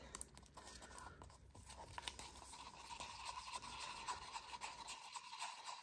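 Faint scraping and ticking of a wooden stir stick against the inside of a small cup, mixing titanium white pigment into epoxy resin.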